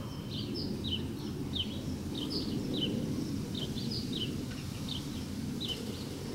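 A small songbird chirping over and over in short, high, down-slurred notes, about two or three a second, over a low, steady background rumble.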